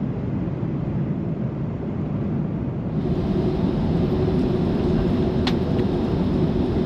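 Steady cabin noise of an Airbus A330-200 in flight: a low rumble of the engines and rushing air. About three seconds in a steady hum joins the rumble, and a single faint click comes near the end.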